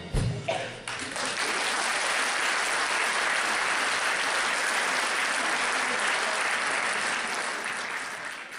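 A large concert audience applauding, the clapping swelling in about a second in and holding steady, easing slightly near the end. Just before it builds, right as the music stops, there is a short low thump.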